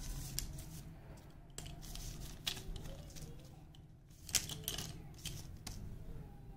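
Slate pencils clicking and clinking against each other as they are picked up and gathered into a bundle by hand: a string of sharp, irregular clicks, the loudest about four seconds in.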